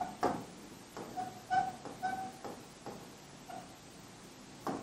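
Marker pen squeaking and tapping on a whiteboard as words are written: a few short squeaks, each on a single pitch, with light taps between them.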